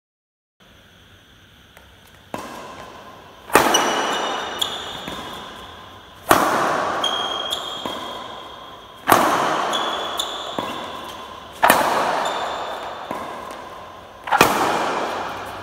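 Badminton racket striking the shuttlecock five times, about every three seconds. Each hit is sharp and loud and echoes for a long time around a large hall, followed by fainter pings and clicks.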